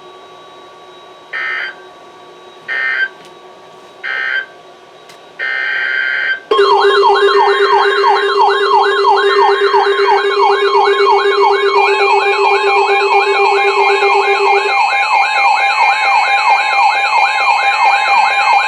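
Emergency alert data bursts: three short ones about a second and a half apart, then a longer one. About six seconds in, weather-alert radio alarms sound together, loud: a warbling tone rising and falling about three times a second over several steady tones.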